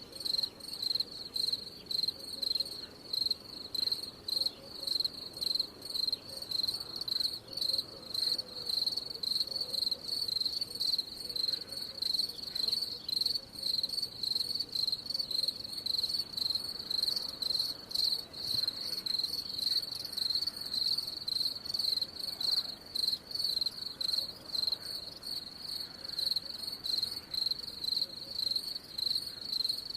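Cricket chirping: one high, even-pitched trill repeated in regular chirps, roughly one to two a second, without pause.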